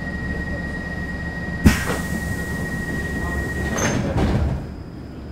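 Stockholm Metro C6 train standing at a platform with a low steady hum. A steady high door-closing warning tone sounds for about four seconds, with a sharp clunk about two seconds in. The sliding doors then close with a rush of noise near the end.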